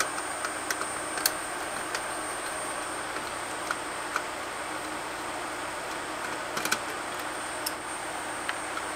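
Scattered light clicks and taps of small parts and tools being handled, over a steady background hiss.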